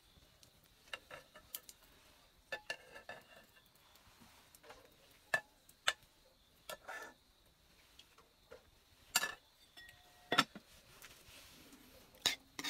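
Metal ladle clinking and scraping against a metal cooking pot and a stainless steel plate while cooked rice is served out: irregular sharp taps, a few with a short ring, the loudest near the middle and near the end.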